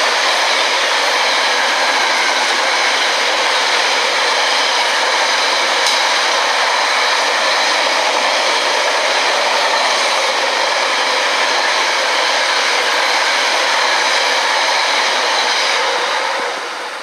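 Train running past at the platform: a loud, steady rush of wheels on rail that dies away near the end.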